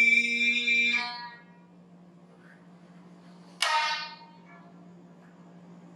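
A held sung note dies away about a second in; then, after a pause, a single sharp stroke on the biwa lute, struck with its large plectrum, rings out and fades within half a second.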